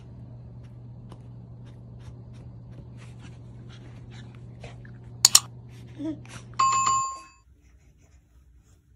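Subscribe-button sound effect: a sharp double click about five seconds in, then a short bright bell ding. Under it runs a steady low hum with faint ticks, which stops suddenly at a cut just after the ding.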